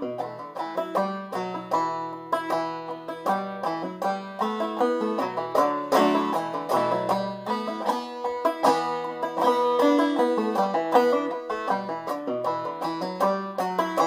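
Long-neck five-string banjo played clawhammer style in low sawmill tuning (eBEAB), a steady run of quick, rhythmic plucked notes of an old-time tune.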